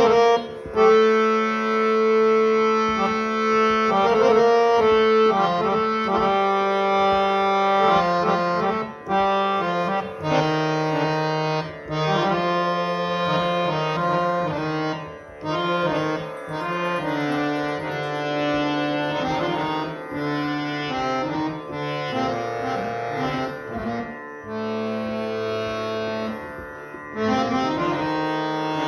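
Restored antique harmonium with Shiv Charan reeds, hand-pumped and played solo: a melody over held lower notes, with short breaks between phrases.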